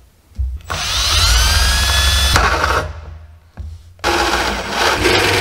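Cordless drill driving a hole saw into 4-inch PVC pipe: the motor spins up with a rising whine about a second in, stops briefly around three seconds, then runs again as the saw cuts into the pipe. The pipe edge is hard to drill.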